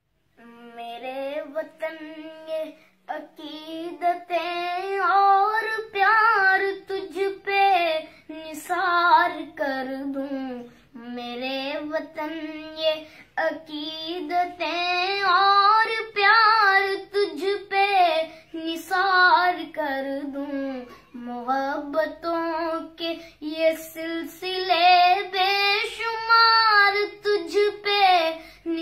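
A child singing a slow, melodic song solo, phrase by phrase with short pauses between, with little or no instrumental accompaniment.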